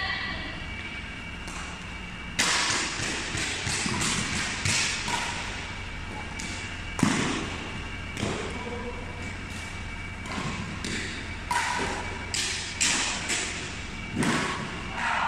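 Badminton rally: rackets strike the shuttlecock with sharp smacks at irregular intervals, about a second apart. The loudest hit comes about halfway through.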